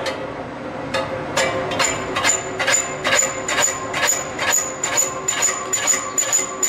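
Sharp metallic strikes with a high ring, repeating evenly about two and a half times a second.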